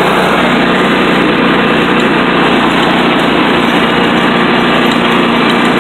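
Riding lawn mower engine running steadily as the mower drives over grass, loud and close, heard from the driver's seat.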